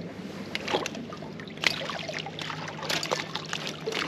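Water splashing and sloshing beside the boat as a small fish is brought to the net, with many short sharp clicks and knocks from handling the rod and gear. A faint steady hum runs underneath.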